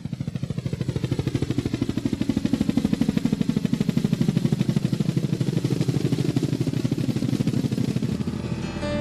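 Helicopter rotor chopping: a rapid, even beat of low thuds that swells in and holds steady. A piano comes in right at the end.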